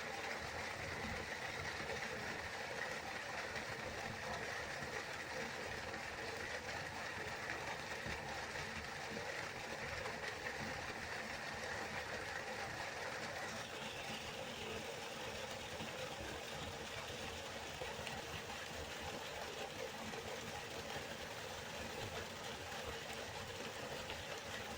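River water flowing in a continuous, even rush; its tone shifts slightly about halfway through.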